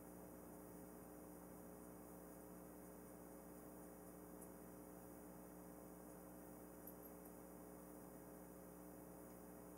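Near silence: room tone with a steady faint hum and a few very faint ticks.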